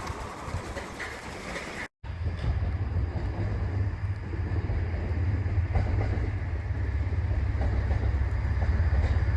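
A train on the rails: after a brief dropout about two seconds in, a steady low rumble with a few faint clicks from the wheels on the track.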